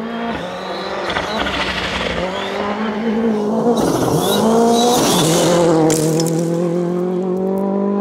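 Rally car engines at high revs on a gravel stage, the pitch climbing and dropping in steps as the driver shifts and lifts. From about four to six seconds in, a loud hiss of gravel and tyre noise is heard as a car goes by close.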